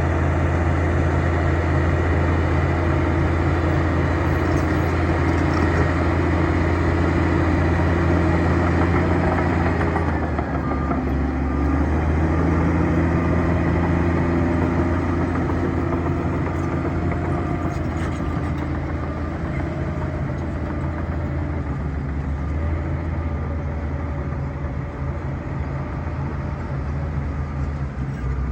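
Bulldozer's diesel engine running steadily, its note dipping and shifting about ten seconds in, then settling slightly lower and a little quieter through the rest.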